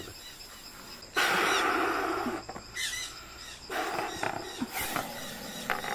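Boa constrictor hissing in defence: one long, loud exhaled hiss about a second in, then a shorter, quieter hiss about two seconds later.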